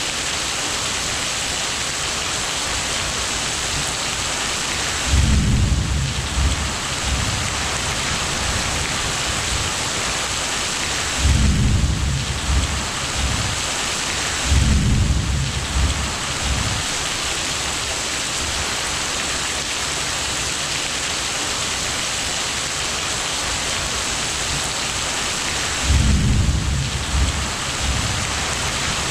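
Thunderstorm: a steady hiss of rain, broken by four low rolls of thunder, each a second or two long, about five seconds in, at eleven and fourteen seconds, and near the end.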